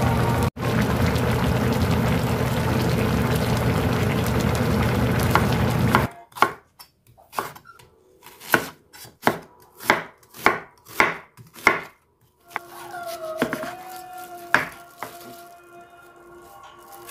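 A loud, steady wash of sound for about six seconds. Then a chef's knife slicing an onion on a bamboo cutting board: about a dozen sharp chops, roughly two a second, followed by a couple of softer knocks.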